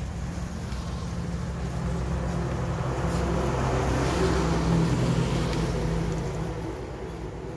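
A motor running with a steady low hum, its sound swelling to a peak about halfway through and then fading.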